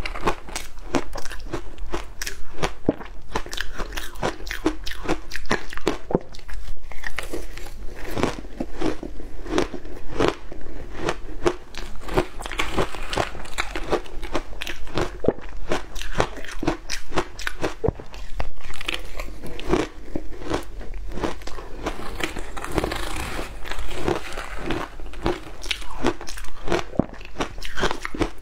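Close-miked crunching and chewing of crushed matcha ice, a dense run of small crisp crunches as the ice is bitten and ground between the teeth.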